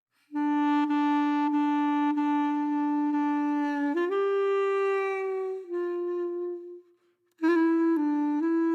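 Background music: a slow melody on a single sustained-tone instrument, long held notes stepping up and down, with a short break about seven seconds in before shorter notes resume.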